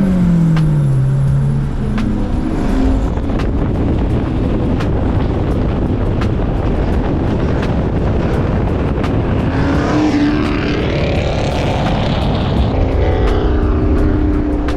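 Acura Integra's engine and exhaust while driving, after the exhaust was refitted following catalytic converter damage. The engine note drops over the first couple of seconds, then climbs again about ten seconds in and once more near the end as the car accelerates.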